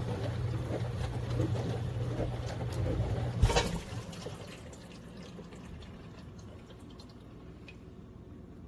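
Mini countertop dishwasher running: a steady pump-motor hum under sloshing water, which stops with a clunk about three and a half seconds in, leaving a quieter trickle and drip of water.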